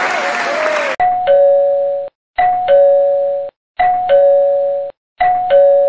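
Applause cuts off abruptly about a second in. A two-tone ding-dong doorbell chime sound effect follows, high note then low, four times about every 1.4 seconds.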